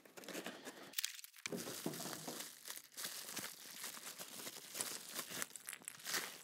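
Plastic packaging bags crinkling and cardboard rustling as small parts are unwrapped from the box, in irregular crackles, with a brief dead silence about a second in.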